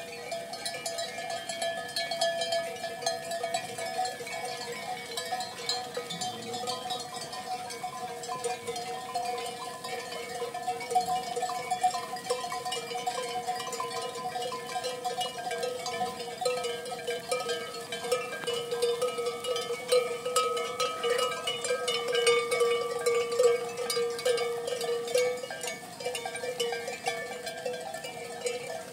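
Many livestock bells on a passing flock of sheep and goats, clanking continuously as a dense mix of overlapping ringing tones.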